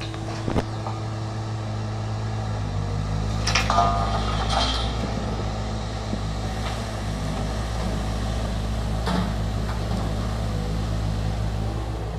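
Volvo EC210 hydraulic excavator's diesel engine running steadily under load as the machine digs and swings, with scattered sharp knocks and scrapes from the bucket working rock, the loudest cluster about four seconds in.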